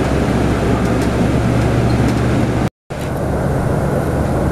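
Steady jet engine noise of an Airbus A320neo climbing out after takeoff, with a low hum beneath it. About three seconds in it cuts off abruptly, and a steadier engine hum with less hiss follows.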